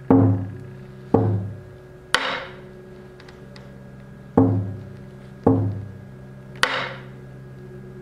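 Music of slow, widely spaced percussion strikes: two deep hits and then a brighter, ringing one. The pattern is heard twice over a steady held drone.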